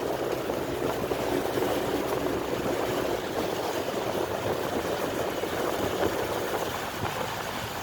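Steady noise of a car driving on a rain-soaked road: tyres on wet tarmac and engine running, with water hiss.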